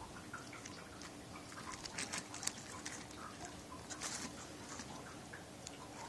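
Wire cutters snipping and handling the wires of an LS engine wiring harness: faint rustling of the insulated wires with scattered sharp clicks, a quick cluster about two seconds in and a longer rustle about four seconds in, over a faint steady hum.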